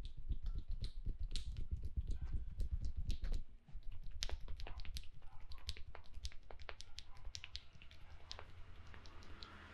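Fast, rapid hand strikes of a barber's percussive head massage: dull thuds with sharp slaps and clicks on top. They are heaviest for the first three and a half seconds, then go on lighter.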